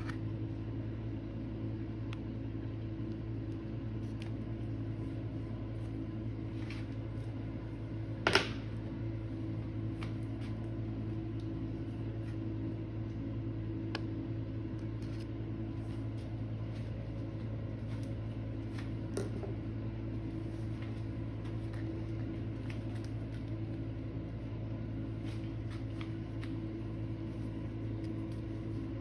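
Steady low mechanical hum, like a fan or appliance motor, with a few faint clicks and taps from paint tubes handled over a glass palette; the sharpest click comes about eight seconds in.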